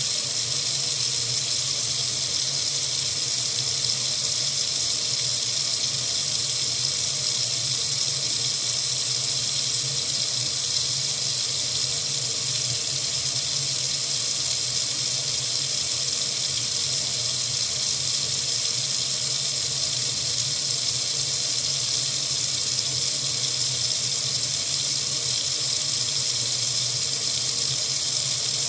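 Water running steadily from a faucet into a sink: an even, unbroken hiss.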